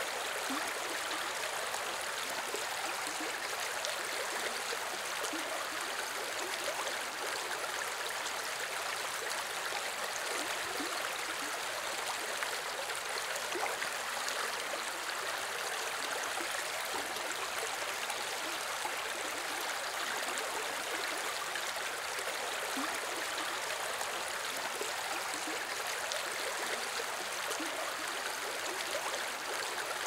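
Small river running over rocks: a steady rush of flowing water with fine trickling and gurgling detail.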